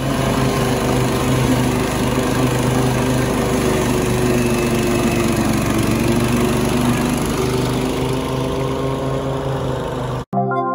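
Toro 30-inch TimeMaster walk-behind mower's Briggs & Stratton engine running steadily under load while cutting grass. It cuts off abruptly just before the end.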